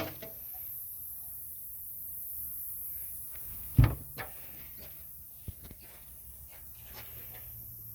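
Knocks and clicks from handling a pneumatic belt sander while hooking it to an air line: one loud thump about 4 s in, a smaller knock just after, and a sharp click a little past 5 s, over a faint steady low hum.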